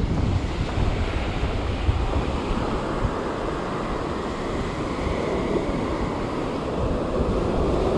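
Surf washing onto a sandy beach, a steady rush of breaking waves, with wind buffeting the microphone in low gusts.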